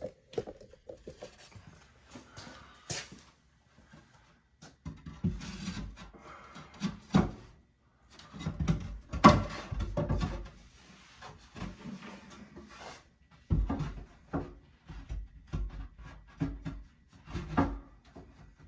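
A cut shelf board being handled and test-fitted into a wall nook: irregular knocks, bumps and scrapes as it is pushed into place, with heavier thuds about five, nine, thirteen and seventeen seconds in.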